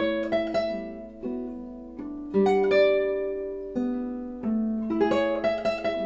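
Solo classical guitar played fingerstyle: plucked notes left to ring and fade, with quick runs of notes near the start and again near the end, and slower held notes in between.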